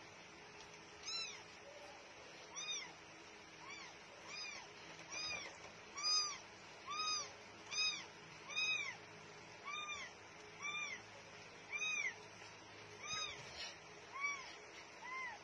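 A kitten mewing over and over: short, high-pitched mews that rise and fall in pitch, about one a second, starting about a second in.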